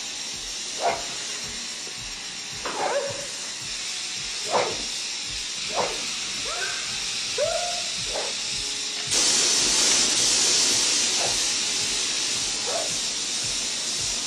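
Short, falling whimpering cries repeat every second or so over a film score. About nine seconds in, a loud steady hiss starts suddenly: gas rushing from opened gas cylinders.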